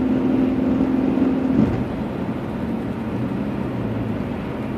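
Car engine and tyre noise heard from inside a moving car's cabin. The engine note holds steady, then drops sharply about a second and a half in, as the car shifts up a gear while gathering speed.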